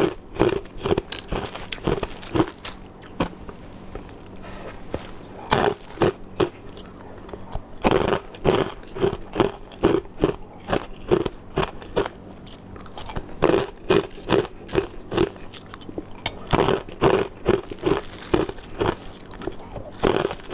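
Chunks of crushed ice being bitten and chewed close to a lapel microphone: runs of sharp, crisp crunches, several a second, broken by brief pauses.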